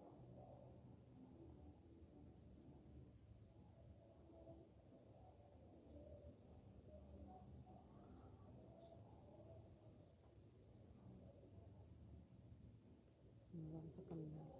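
Crickets chirping faintly in a steady, fast, even pulse, over a low background murmur. About a second before the end comes a brief, louder low-pitched sound.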